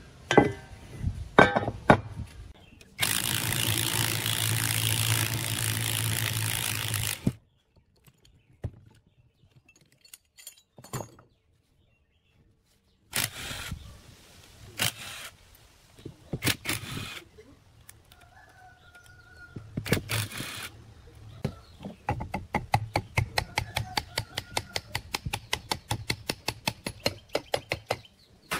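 Metal clinks and knocks as the end bell of an old electric motor is worked loose, then a cordless drill with a wire cup brush running for about four seconds, and later in short bursts. In the last six seconds a hammer taps the motor's cast housing quickly and evenly, several times a second.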